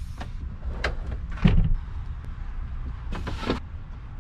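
Cut plywood boards being loaded into the back of a car: several knocks and thumps, the heaviest about one and a half seconds in, and a scraping rush about three seconds in as a board slides over the cargo floor, over a steady low rumble.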